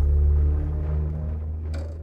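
Low steady mechanical hum, loudest at first and slowly fading, with a single sharp click near the end.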